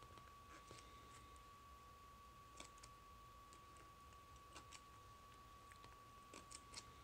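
Near silence: faint clicks and soft snaps of a large glossy softcover photo book's pages being turned by hand, a few at a time with a cluster near the end, over a faint steady whine.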